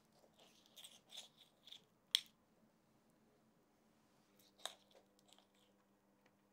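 Two metal spoons working thick, sticky chocolate cookie dough: soft scraping and squishing for about a second and a half, then a sharp metal click, and another click about two and a half seconds later. A faint steady hum underneath.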